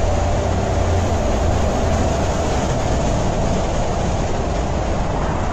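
Water rushing steadily down a water slide, a loud, even rush with a deep rumble beneath it.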